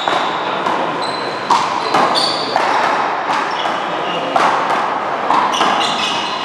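Rubber ball being struck by paddles and hands and hitting the wall and floor in a fast one-wall paddleball/handball rally: sharp smacks about two a second, each echoing in the hall, with short high squeaks between them.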